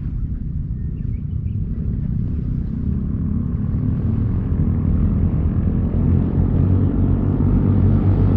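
Low engine drone growing steadily louder, a motor approaching.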